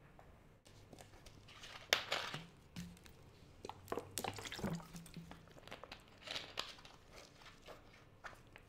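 Thin plastic water bottle crinkling and clicking as it is handled and drunk from, in short sharp bursts about two, four and six seconds in.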